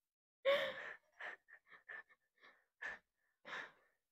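Children giggling in short breathy laughs: a louder laugh about half a second in, then a string of soft, quick breathy bursts.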